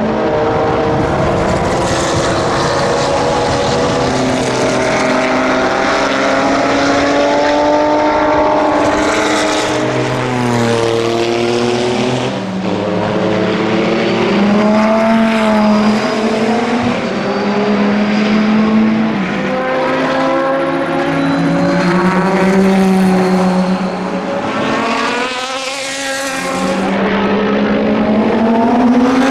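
Chrysler Viper GTS-R racing car's V10 engine on track, pitch climbing and dropping as it changes gear through the corners. It passes the microphone with a falling pitch about a third of the way in and again near the end.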